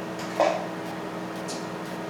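Steady hum of a jewelry laser welder's cooling fan, with one short pop about half a second in and a couple of faint high ticks.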